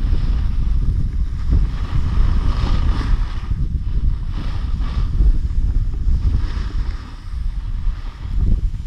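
Wind buffeting a selfie-stick action camera's microphone during a snowboard run downhill, a heavy low rumble. Over it comes the hiss of the snowboard's edge scraping across the snow, swelling and fading with the turns.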